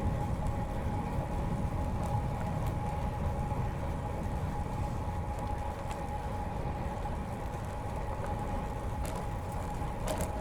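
Steady rolling noise of a road bike ride: a low rumble of wind and tyres on the path, with a steady hum and a few faint clicks.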